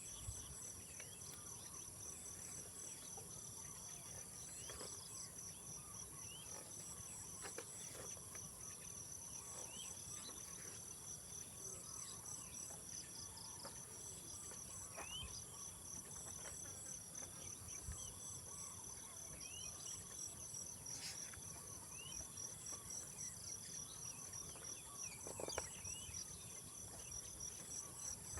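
Steady chorus of crickets and other insects: a continuous high trill with a faster pulsing chirp beneath it, and a few faint clicks and short chirps scattered through.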